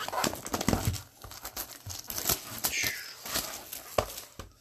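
Plastic shrink-wrap on a sealed trading card box crinkling and tearing as it is pulled off, with a sharp click about four seconds in.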